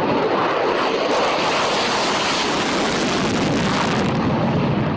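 A steady, even rushing noise with no distinct pitch, holding one loud level throughout.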